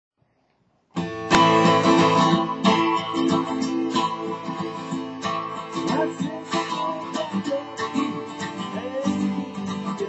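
Taylor 12-string acoustic guitar being strummed in chords, starting about a second in.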